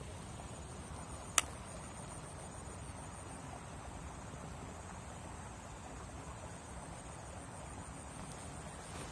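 A steady high insect trill over a low, even background hiss, with one sharp click about a second and a half in.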